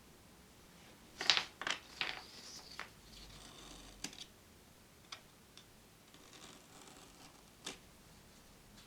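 A few light clicks and taps, bunched together early on and then spaced out, with short soft rustles in between: small objects being handled.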